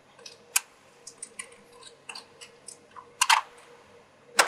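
Battery and battery holder being popped off a Macintosh SE/30 logic board with a small screwdriver: a scatter of light clicks and ticks, with sharper snaps about half a second in, a pair a little after three seconds, and one near the end.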